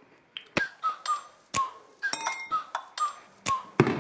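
Background music: a hip-hop beat with sharp clicking percussion about twice a second and short, repeated whistle-like notes.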